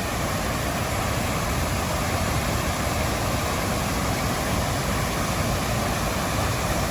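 Steady rushing roar of a waterfall, an even wash of water noise without change.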